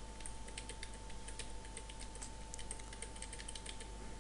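Computer keyboard keys tapped in quick, irregular succession as Shift and the arrow keys nudge a pasted shape along, giving faint clicking. A faint steady hum runs underneath.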